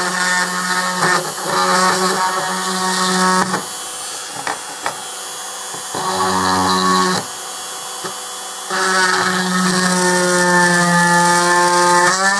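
Handheld rotary mini drill with a fine bit grinding into the metal rivet of a die-cast model car's chassis, drilling it out. A steady motor whine that comes in three stretches, easing off in between, its pitch rising slightly near the end.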